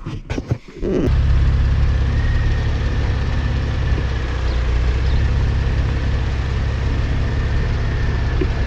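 4x4 vehicle engine running steadily with a low, even drone that comes in abruptly about a second in, after a few short irregular sounds.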